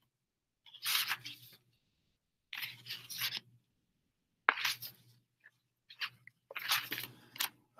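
Four short bursts of crackling, rustling handling noise close to the microphone, with a sharp click at the start of the third, about four and a half seconds in.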